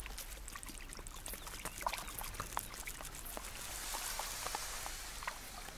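Water trickling and dripping, with many small scattered drips and clicks over a soft hiss that swells briefly about four seconds in.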